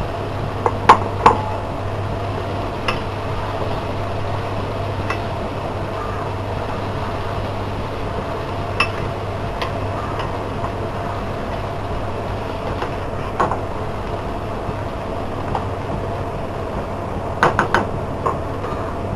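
Spoon stirring chopped onions and tomatoes in a frying pan, knocking sharply against the pan a few times about a second in, once midway and in a quick cluster near the end, over a steady low hum.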